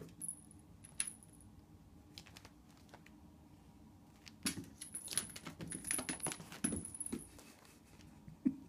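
A kitten playing with a plastic toy mouse on a vinyl tile floor: light clicks and rattling taps, with a busy flurry of them from about halfway through and a sharp tap near the end.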